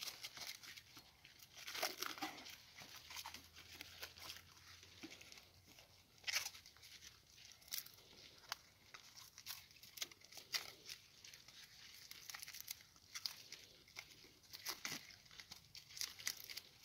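Plastic stretch film being pulled off its roll and wrapped around a soil-filled plastic bag: quiet, irregular crinkling and crackling of plastic, with a few sharper snaps.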